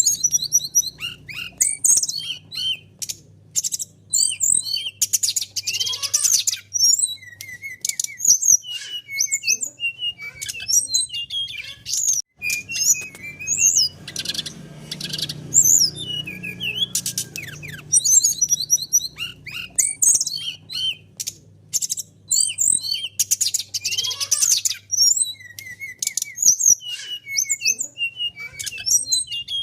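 Brown-chested jungle flycatcher singing a fast, varied song of high chirps, slurred whistles and short rattling trills, with phrases recurring through the song.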